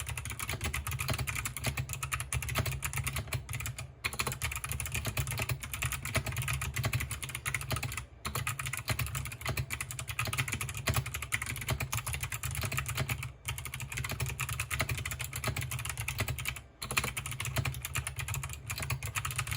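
Fast, continuous typing on a KBParadise V60THE2 mechanical keyboard with Kailh Box Navy clicky switches, a dense run of sharp clicks broken by a few short pauses.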